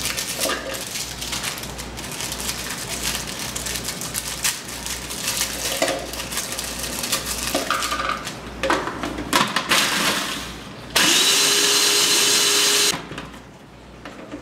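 Plastic Oreo packet crinkling and cookies clattering into a plastic food processor bowl. About eleven seconds in, a food processor motor spins up and runs loud and steady for about two seconds, crushing the Oreos, then cuts off.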